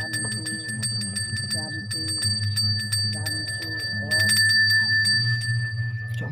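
Hand bell ringing continuously with rapid clapper strokes, growing louder about four seconds in; typical of the genta, the priest's bell rung through Balinese Hindu prayer. Voices chanting underneath.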